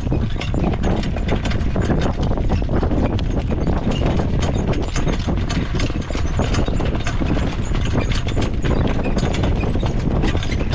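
Horse hoofbeats with a dense rattle of many small clicks over a steady low rumble.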